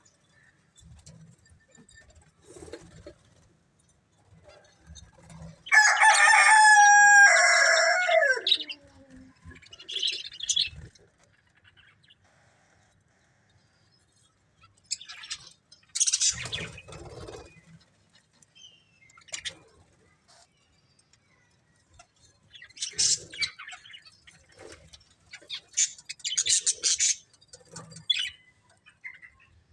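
Budgerigars chirping in scattered short bursts. A rooster crows once about six seconds in, a long call that drops in pitch at the end and is the loudest sound.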